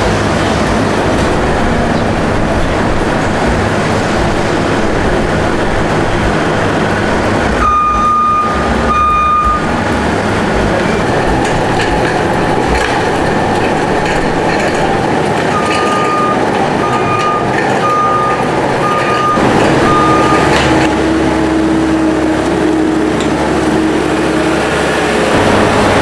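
New Holland L328 skid steer loader's diesel engine running steadily while working a compost-mixing bucket, with its reversing alarm beeping twice about eight seconds in and then five more times from about sixteen to twenty seconds in.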